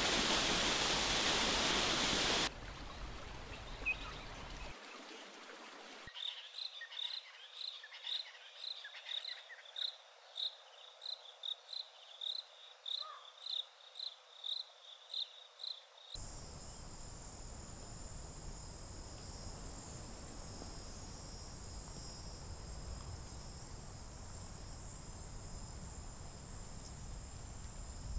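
A stream pouring over a waterfall, a loud steady rush that cuts off about two seconds in. Then, a few seconds later, a night insect chirping in a steady rhythm, about one and a half high chirps a second, for some ten seconds. After that, a steady high drone of insects.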